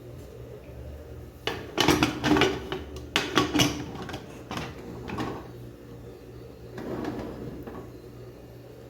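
A run of knocks and clatters, things being handled in a kitchen, dense from about a second and a half in for about four seconds, with a few fainter ones near the end, over a low steady hum.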